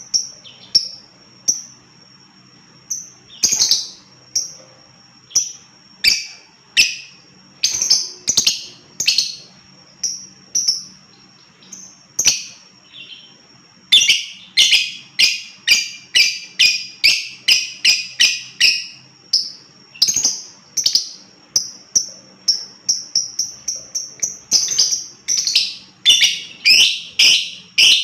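Lovebird giving shrill, high-pitched chirping calls, one after another with short gaps, breaking into quicker runs of calls about halfway through and again near the end.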